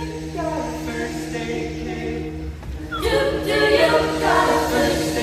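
An a cappella vocal group singing, holding steady chords, then coming in louder with more moving voice parts about three seconds in.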